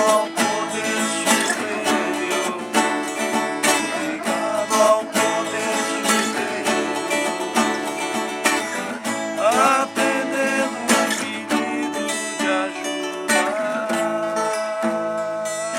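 Music: strummed acoustic guitar over a steady beat, with a long held note near the end.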